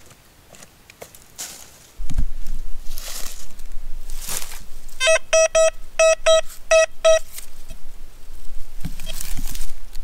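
Metal detector sounding a quick run of short, identical beeps for about two seconds, midway through, as its search coil passes over a buried metal target. Short swishing noises come and go around the beeps.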